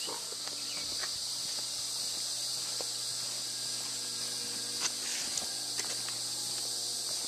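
Steady high-pitched insect chorus, crickets or similar, with a few faint clicks about five seconds in.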